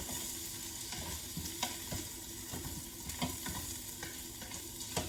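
Spoon stirring vegan sausage, onion and spices frying in an Instant Pot on sauté: a steady sizzle with scattered clicks and scrapes of the spoon against the pot.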